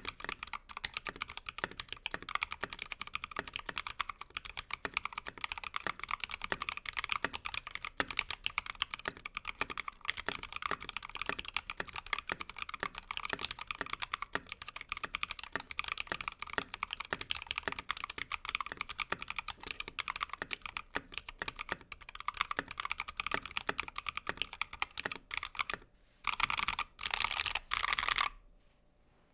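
Fast, continuous typing on a Freebird60 mechanical keyboard with Tecsee Ice Candy switches, key after key clacking. Near the end come two short spells of rapid, unbroken key mashing, then the typing stops abruptly.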